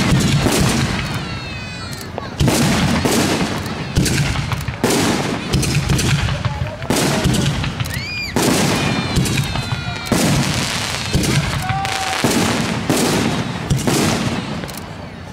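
Aerial fireworks shells bursting in quick succession: about a dozen sharp bangs, one every second or two, some in close pairs, each trailing off in a rumble.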